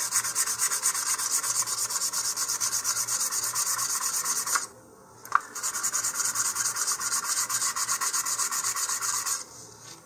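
Fine sandpaper being rubbed by hand over a polystyrene model-rocket nose cone in quick, even back-and-forth strokes, taking down the moulding ridges and roughening the surface so paint will adhere. The sanding stops briefly a little under halfway through, with a single click, then resumes and stops again near the end.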